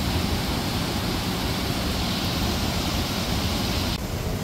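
Steady outdoor rushing noise with a heavy, uneven low rumble, changing abruptly about four seconds in.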